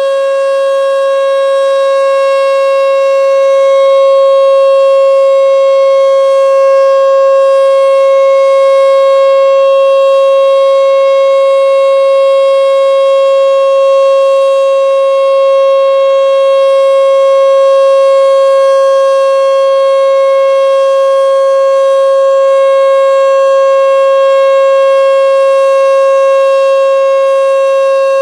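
American Signal T-121 outdoor warning siren sounding its full-alert steady tone: one unbroken pitch held level, its loudness swelling and easing slightly.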